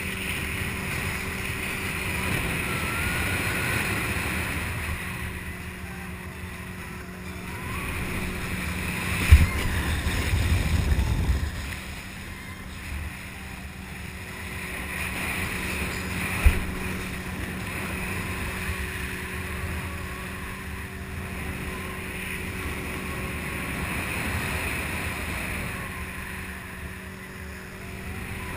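Motorboat engine running steadily under rushing water and wind on the microphone, with a couple of sharp thumps, the first about nine seconds in during a louder stretch of rushing water, the second about sixteen seconds in.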